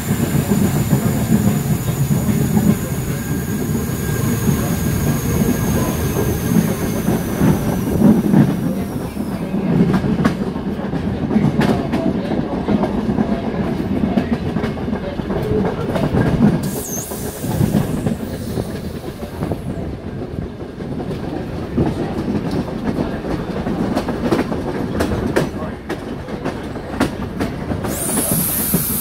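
Steam-hauled train's carriages running on the rails: a steady rumble with sharp clicks of the wheels over rail joints. A high wheel squeal sounds for the first nine seconds or so, returns briefly past the middle, and starts again near the end.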